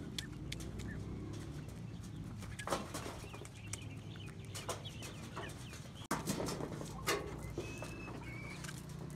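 Chickens clucking softly while pecking grain from plastic-bottle feeders, their beaks tapping sharply and repeatedly on the plastic, with a short high call near the end.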